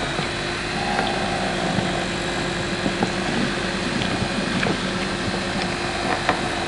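Diesel locomotive engine running steadily, a constant droning rumble with scattered light clicks and knocks over it.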